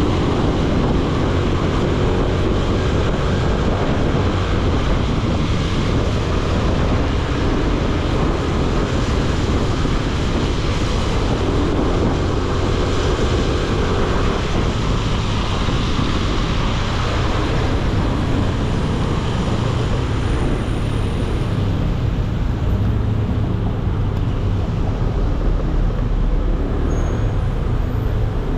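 Steady city traffic noise heard from a moving motorbike: engine and road noise with a strong low rumble, even throughout, with no single sound standing out.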